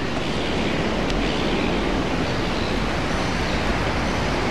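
Steady, even rushing of surf and wind, with no single sound standing out.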